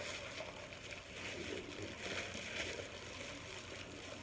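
Faint rustling and handling noise as a package is unwrapped by hand.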